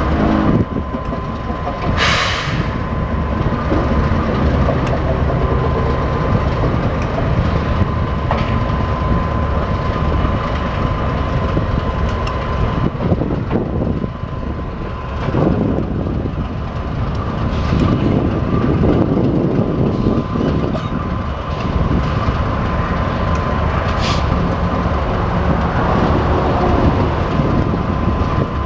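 Canadian Pacific diesel locomotive running with a steady low rumble as it is turned on a yard turntable, with a short hiss about two seconds in.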